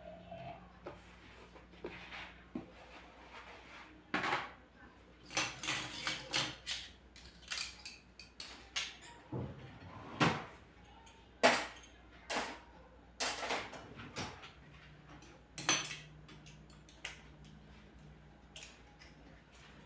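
Dishes and cutlery being handled: irregular clinks and knocks of plates and utensils set down and moved about, a dozen or more over the stretch.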